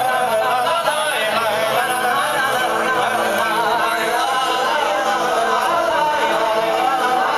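Music with a singing voice: a lyrical Serbian song.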